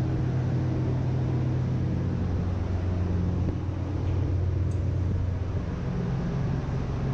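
Steady low drone of ship's engine-room machinery heard from inside the main engine's crankcase, a strong hum whose tone shifts a little a few times; the main engine itself is stopped.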